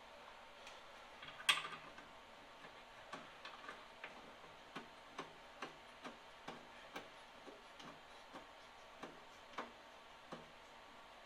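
Light mechanical clicks, one louder clack about one and a half seconds in, then a fairly even run of ticks at about two a second.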